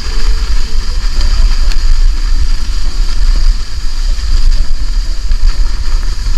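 Heavy wind rumble on the microphone with the continuous hiss of a plastic saucer sled sliding fast over packed snow.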